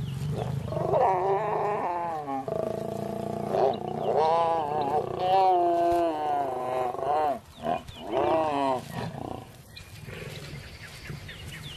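Lions growling and snarling in long, wavering calls, with short breaks about two and a half and seven and a half seconds in. The calls stop about nine seconds in and the rest is quieter.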